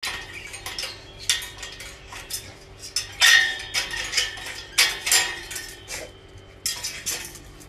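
Metal gate and slide-bolt latch clinking and rattling as a dog paws and noses at it, working the bolt open. Irregular knocks and rattles, with a few louder clatters.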